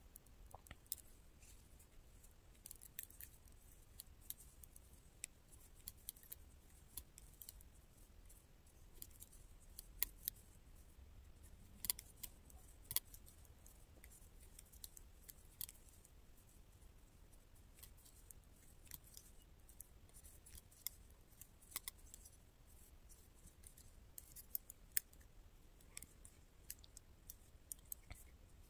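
Thin metal double-pointed knitting needles clicking against each other as stitches are knitted, in faint, irregular clicks.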